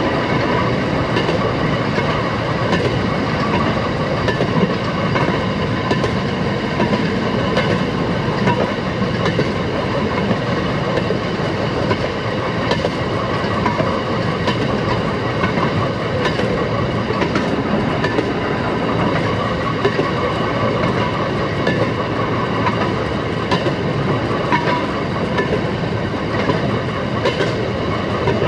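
Railroad motorcar (speeder) running along the track: a steady engine and wheel noise with scattered clicks as the wheels pass over rail joints.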